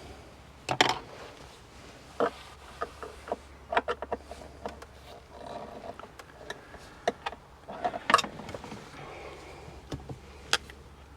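Plastic interior trim being pried and handled: irregular sharp clicks and knocks, the loudest about a second in and about eight seconds in, over a faint steady low hum.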